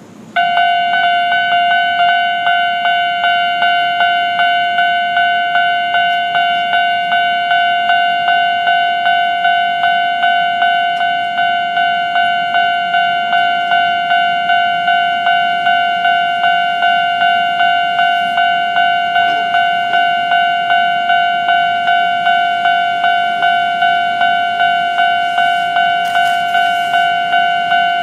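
Japanese railway level-crossing alarm ringing: a loud electronic ding that repeats evenly about one and a half times a second, warning of an approaching train. It starts suddenly right at the beginning.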